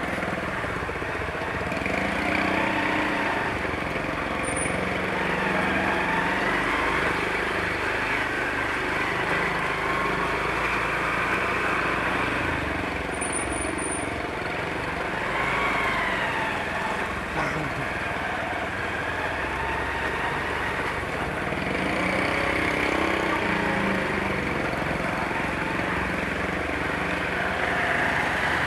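Motorcycle engine running steadily while riding in traffic, with road and wind noise.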